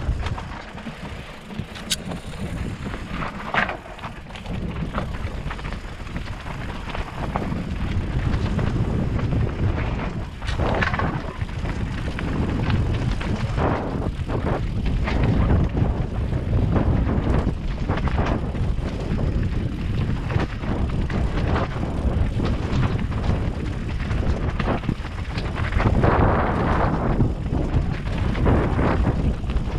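Mountain bike riding over a rocky trail: tyres rolling on stone and gravel, with frequent knocks and rattles as the bike crosses rocks, under a steady rush of wind on the microphone.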